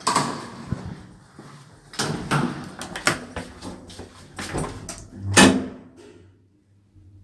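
Old Zremb passenger lift being called and arriving at the landing: a series of mechanical clunks and clicks from the lift's door and lock gear, the loudest about five seconds in, followed by a low steady hum.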